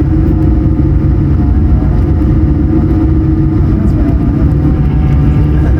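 Inside the cabin of an Airbus A220-100: a loud, steady drone from its Pratt & Whitney PW1500G geared turbofans, with a heavy low rumble from the airframe and wheels, as the jet rolls along the ground just after landing.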